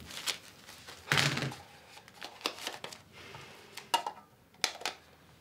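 Soft rustling of banknotes and a purse being turned over in the hands, with several sharp little clicks near the end.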